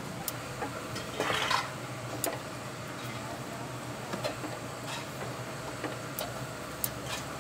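Light clicks and clinks of skewers and a basting brush against the metal grate of a charcoal grill, over steady background noise, with a short louder clatter about a second in.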